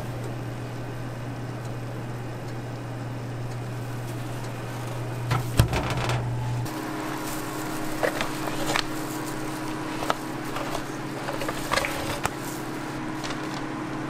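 A metal oven tray knocking and scraping as pizza waffles are slid off it into paper boxes, with one sharp knock about five and a half seconds in and lighter clatters later. A steady low hum runs underneath and switches to a higher hum about halfway through.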